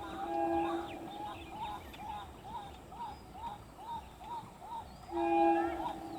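A bird calling a short rising-and-falling note over and over, about twice a second. A held, steady pitched tone sounds briefly at the start and again about five seconds in, where it is the loudest thing.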